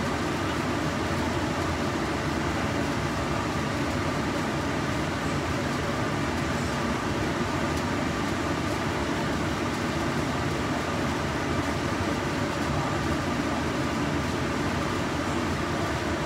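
A steady fan-like whir with a faint hum, unchanging throughout.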